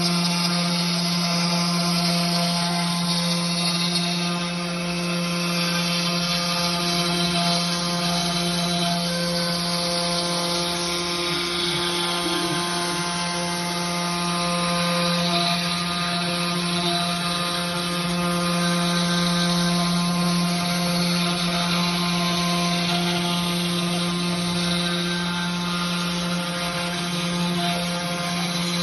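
Desktop CNC router's spindle running at a constant speed as it cuts MDF: a steady, even machine whine over a rough cutting noise.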